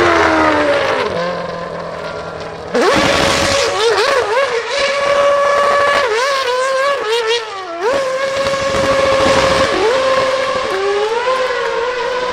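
2012 Red Bull RB8 Formula 1 car's 2.4-litre Renault RS27 V8, its pitch dropping as it slows. About three seconds in it suddenly comes in loud, revving hard and wavering up and down as the rear tyres spin the car through donuts. Near the end it rises again as the car accelerates away.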